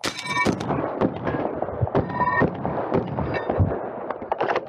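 Benelli M2 semi-automatic 12-gauge shotgun firing a rapid string of shots, several a second.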